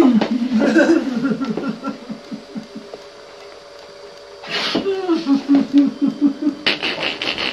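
A child laughing in two bouts of quick, even 'ha-ha' pulses, the second starting about four and a half seconds in after a short lull.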